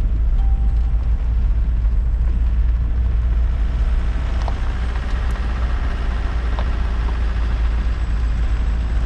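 Car driving slowly on a gravel track, heard from its open side window: a steady low rumble of wind on the microphone, engine and tyres on gravel, with a few sharp ticks of stones partway through.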